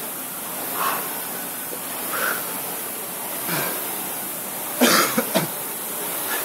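Concept2 rowing machine's flywheel fan whirring steadily under hard rowing, swelling with each drive about every second and a half. About five seconds in, a short loud burst of harsh breathing or coughing from the rower.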